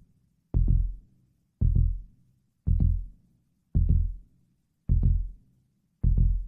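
Heartbeat sound effect: slow, steady lub-dub beats, each a deep double thump, about one a second, six in all.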